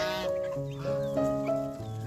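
Background music of held melodic notes changing every half second or so, with a short animal call right at the start and a few faint high chirps.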